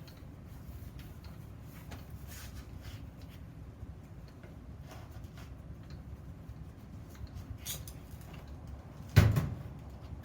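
Steel workpieces being handled on a workbench. Scattered light clicks and taps sound over a low steady hum, then one loud clank about nine seconds in that rings briefly as it dies away.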